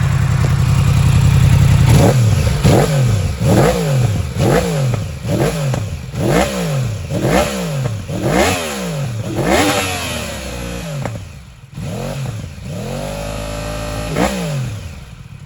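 2016 Yamaha R1S inline-four engine, breathing through its stock factory exhaust with catalytic converters, idling and then revved in about nine quick throttle blips roughly a second apart, each rising and falling in pitch. Near the end it is held at a steadier, higher rev for a moment before dropping back to idle.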